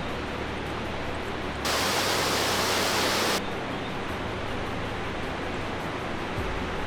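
Steady rushing of falling water from a waterfall and creek. About a second and a half in, it cuts abruptly louder and brighter for almost two seconds, then drops back just as suddenly.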